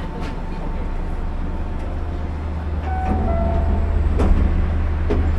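Steady low hum of an Osaka Monorail train standing at a station, heard inside the driver's cab. About three seconds in, a brief tone steps down in pitch. A sharp click follows about a second later, and another comes near the end.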